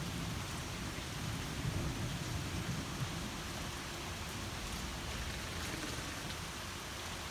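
Heavy rain falling steadily during a thunderstorm, an even hiss of rain on surfaces.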